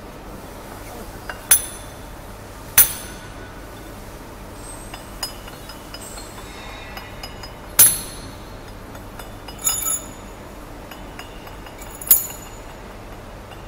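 Steel spacer bushes and a roll forming machine's roller shaft clinking together as they are handled: about five sharp metallic clinks with a short ring, irregularly spaced, over a steady low hum.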